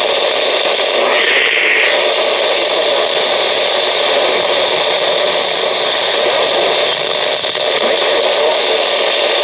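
Radio static: a steady hiss from the radio receiver with no voice on it, with a brief stronger rush of hiss about a second in.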